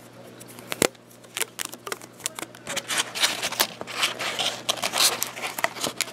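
A rubber band being stretched and wound around the EPP foam nose of a model plane: a run of quick clicks, snaps and rustles as the band and foam are handled, busiest after the first second or so.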